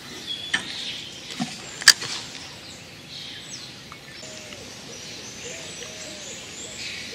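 A few sharp clicks and knocks from a feeder rod and its spinning reel, the loudest about two seconds in, as the freshly cast rod is settled onto its rest. Then a run of short whistled bird calls sounds against a faint outdoor background.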